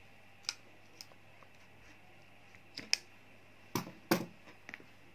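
Sparse light clicks and taps, about six in all, the loudest about three and four seconds in, from handling a half-crocheted shoe on its moulded sole.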